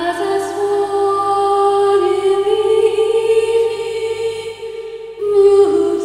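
Slow folk song: a voice holds long, slow notes over a steady low drone, and a new phrase begins about five seconds in.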